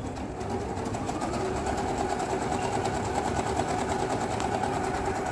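Usha Dream Maker 120 computerised zigzag sewing machine running steadily, stitching out a decorative design with a fast, even needle rhythm.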